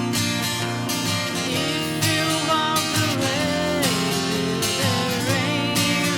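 Folk song with acoustic guitar strumming under a melody line of long notes that bend and slide in pitch, coming in about two and a half seconds in.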